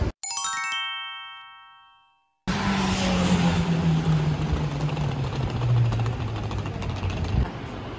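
A short run of chime notes rings out and dies away over about two seconds as an edit sound effect. It cuts off and gives way to street noise: a hard-shell suitcase's wheels rattling over paving tiles, with a vehicle's engine drone falling slowly in pitch.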